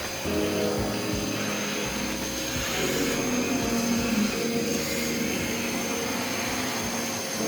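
An electric air-moving motor runs steadily, giving a rush of air with a high whine over a low hum, as used to clear dust from a laptop's fan.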